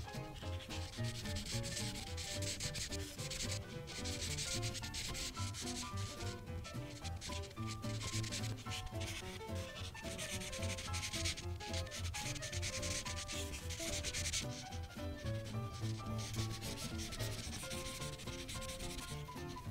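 Prismacolor marker tip scratching back and forth on paper, colouring in a large area in long runs of quick strokes with brief pauses between them.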